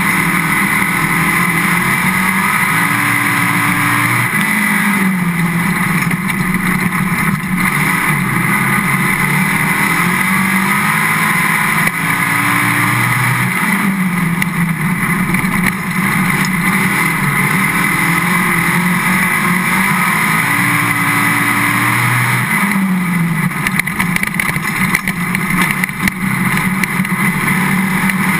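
Dirt-track race car's engine running hard, heard close from a camera on the car, with tire and wind noise. Three times its pitch dips and climbs again, about every nine seconds, as it lifts for the turns and accelerates down the straights.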